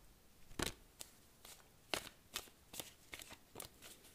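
A deck of oracle cards being shuffled by hand: a string of soft, irregular card slaps and rustles, about two or three a second.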